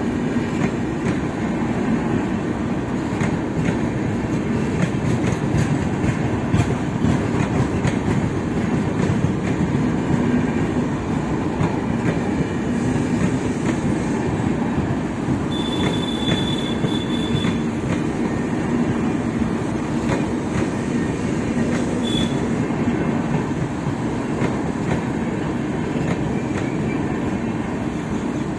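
Broad-gauge passenger train's coaches rolling past, with a steady, even rumble and clatter of wheels on the track. A high wheel squeal rings out for about two seconds midway, with a shorter one a few seconds later.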